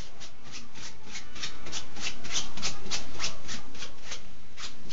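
A Peterbald cat scratching with its front paw: quick repeated raking strokes, about three a second.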